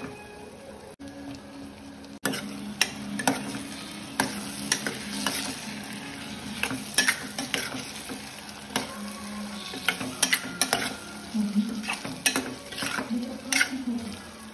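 Stuffed bitter gourds sizzling as they fry in oil in a pan, while a spatula stirs and turns them. From about two seconds in, the spatula scrapes and knocks against the pan many times in an irregular run of sharp clicks.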